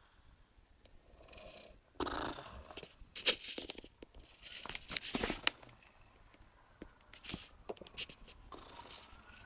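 Snoring: several loud, noisy sleeping breaths, strongest in the first half and fainter later. A faint siren rises and falls near the end.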